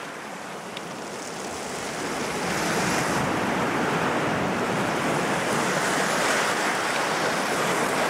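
Sea surf washing over a rocky shore: a steady rush of breaking water that grows louder about two seconds in.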